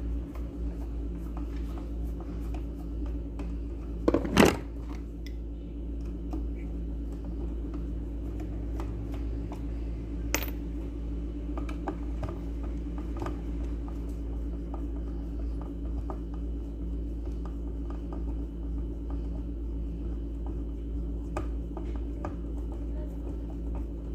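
Small clicks and scrapes of hand tools and parts being handled while the mixer grinder's gearbox is taken apart, over a steady low hum. A louder scrape comes about four seconds in and a sharp click about ten seconds in.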